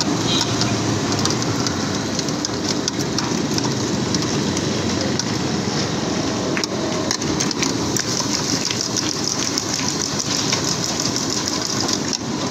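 French fries deep-frying in large fryers of bubbling oil, sizzling steadily with a dense crackle, over a steady low rumble.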